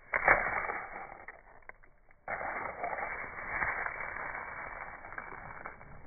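Fingers brushing through a patch of moss and its stalked spore capsules: a sudden rustle, loudest at the start, fading over about two seconds. After a short lull, a longer spell of dense rustling cuts in abruptly.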